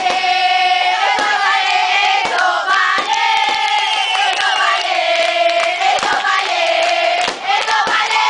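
A crowd of spectators cheering and screaming in long, high-pitched, sustained shouts at an aerial fireworks display. Several sharp firework bangs go off through it.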